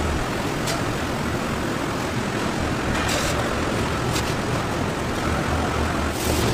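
Steady industrial noise of broth at a rolling boil in a large stainless steel kettle, over a low machinery hum. A few short knocks stand out, the clearest about three seconds in.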